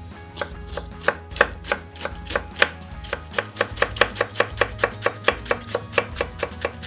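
Ceramic kitchen knife shredding lettuce with quick, even chopping strokes, about four or five a second.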